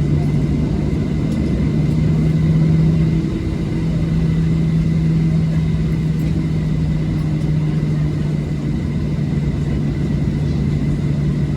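Cabin noise of a Boeing 737-800 taxiing after landing: a steady low hum and rumble from its CFM56-7B engines at taxi power, with a faint steady high whine.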